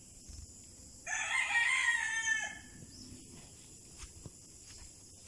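A rooster crowing once, about a second in, the call lasting about a second and a half.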